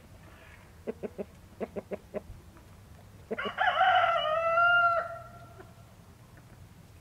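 A rooster crowing once, about three seconds in: one loud call lasting under two seconds that starts rough and settles into a held, falling tone. Before it come a few short, soft clicks.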